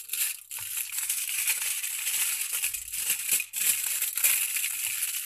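Aluminium foil crinkling and rustling without a break as hands fold and press it around a rolled wrap.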